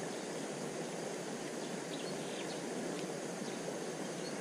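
Steady rushing of a small, fast-flowing stream, an even hiss of water.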